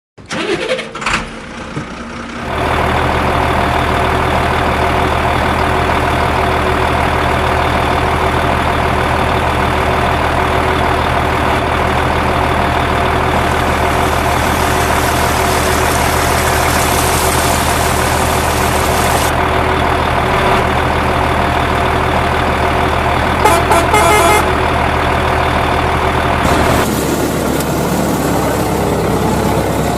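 A heavy vehicle engine comes in about two seconds in and runs at a steady drone. It has a brief louder burst about three quarters of the way through, and its tone shifts near the end.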